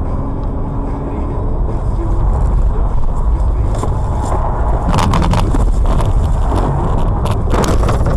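Car heard through a dashcam: a loud, steady low rumble of engine and road. From about five seconds in come a rapid string of sharp knocks and rattles as the car jolts off the road.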